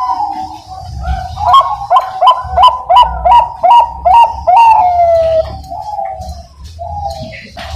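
Bangkok-type zebra dove (perkutut) singing its loud cooing song: a quick run of about nine short clipped coos, then a longer note that slides down in pitch.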